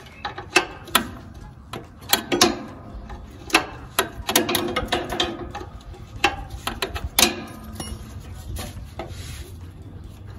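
Ratchet wrench clicking and metal tools clinking against the oil drain plug of a lawn tractor as the plug is worked loose. The clicks and clanks come irregularly, with a quicker run of ratcheting about halfway through.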